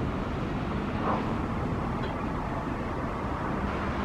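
Steady low hum of distant city traffic, with a faint steady drone underneath.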